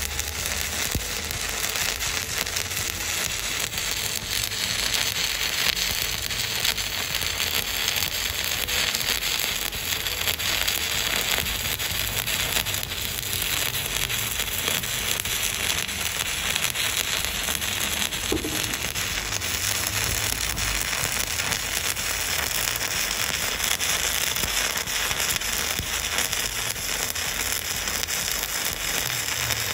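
Stick (MMA) welding arc from a Volt 2-in-1 200 A inverter welder, crackling steadily as the coated electrode burns into the steel.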